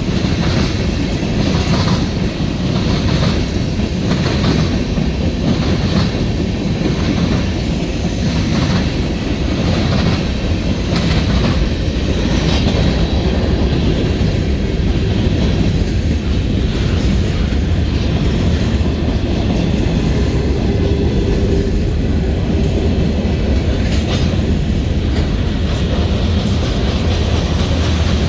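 Canadian Pacific manifest freight train's cars rolling past with a loud, steady rumble, their steel wheels clicking rhythmically over the rail joints, clearest in the first half.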